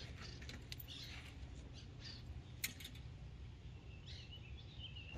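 Birds chirping in short, scattered calls over a low steady rumble, with one sharp click a little past halfway.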